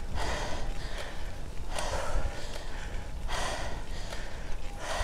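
A cyclist breathing hard on a steep climb, a loud breath about every second and a half, the sign of heavy exertion. Under it runs a steady low rumble of wind on the microphone.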